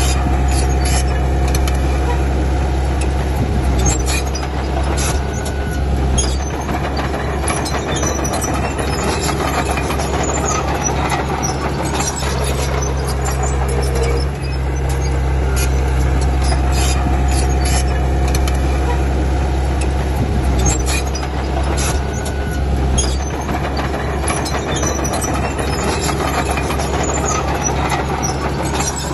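Diesel engine of a Komatsu D31P crawler bulldozer running steadily under load, with frequent short metallic clanks and knocks throughout.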